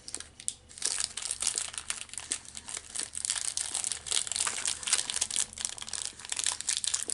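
Plastic snack-bar wrapper crinkling as it is handled, a dense run of irregular crackles.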